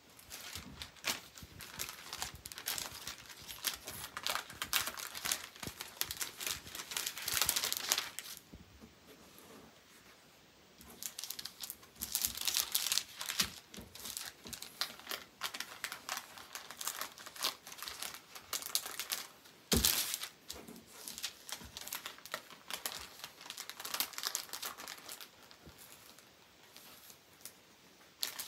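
Clear cellophane sleeve crinkling and rustling in bursts as a paper print is slid into it and the packet is handled, with a short lull partway through. There is one sharp tap about twenty seconds in.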